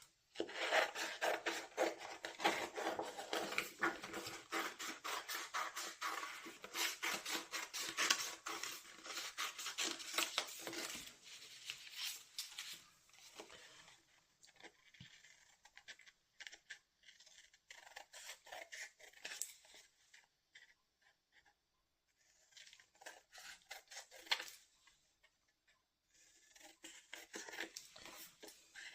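Scissors cutting through thin cardstock: a dense run of crisp snips and paper rustle for about the first eleven seconds, then shorter bursts of cutting with pauses between.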